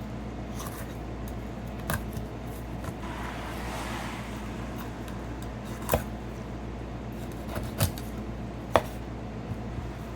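A few sharp knocks of a knife on a cutting board while an isaki (chicken grunt) is filleted, over a steady low hum, with a short scraping hiss about four seconds in.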